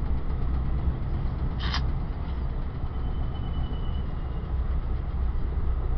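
Steady low rumble of a passenger rail car rolling along the track, heard from inside an Amtrak ex-Metroliner cab car. A brief sharp squeak comes about two seconds in, followed by a faint thin squeal lasting a second or so.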